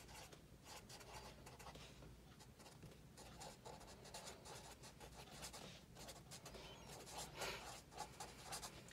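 Felt-tip marker writing on a spiral-bound paper pad: faint, quick strokes of the tip across the paper, one after another.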